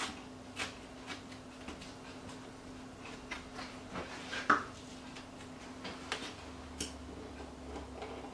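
Light taps and handling sounds of a steel ruler and a leather notebook cover on a cutting mat. The loudest is a short metallic clink with a brief ring about four and a half seconds in. A faint steady hum sits underneath.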